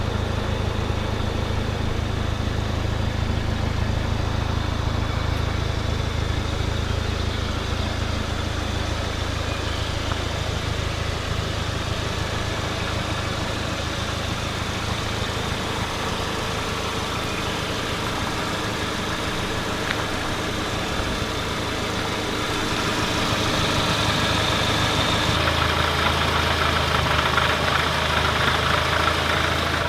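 Volkswagen Mk7 GTI's 2.0-litre turbocharged four-cylinder idling steadily with its manual six-speed gearbox, recorded to judge the gear rattle people blame on the flywheel. This is likely the stock dual-mass flywheel setup. About 25 seconds in the sound changes, and the higher-pitched clatter grows louder.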